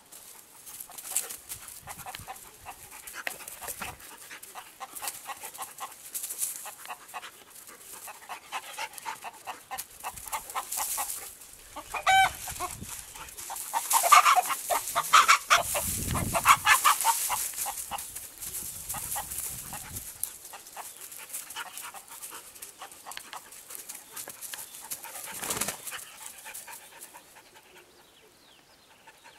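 A rooster clucking and a German Shepherd puppy panting while they square off. There is a louder flurry of activity a bit before halfway through, as the two chase each other.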